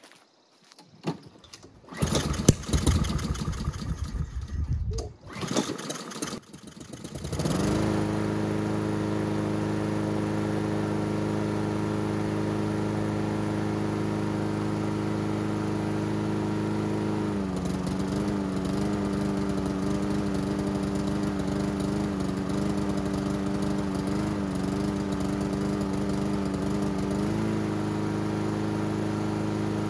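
Honda GCV160 single-cylinder lawn mower engine pull-started, catching about seven seconds in and then running at a steady speed. About ten seconds later its note drops and it labours for about ten seconds before picking back up. The slowdown is consistent with the oil-soaked air filter choking off its air.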